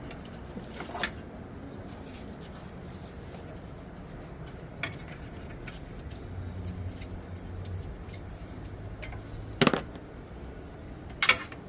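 Scattered light metallic clicks and clinks of hand tools working on metal engine parts under the hood, with two sharper clanks near the end.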